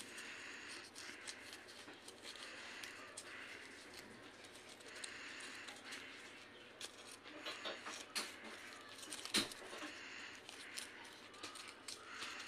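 Faint paper rustling and crinkling as a rolled paper note is unrolled and handled, with scattered small clicks and one sharp tap about three-quarters of the way through.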